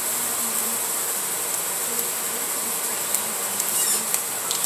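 Steady background hiss with a faint low hum, and a few faint small clicks about three to four and a half seconds in.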